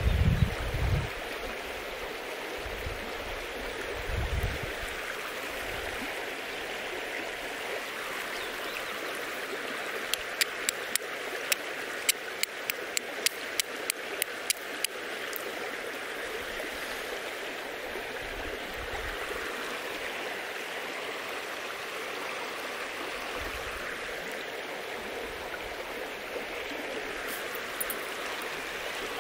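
Flint and steel: a forged steel striker hit against a piece of flint, about a dozen sharp clicking strikes at about three a second, to throw sparks. They come about a third of the way in, over a steady rush of running water. A few low thumps come near the start.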